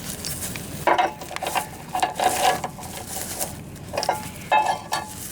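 Metal tow chain clinking and rattling in irregular bursts as it is worked around a hook on a riding mower.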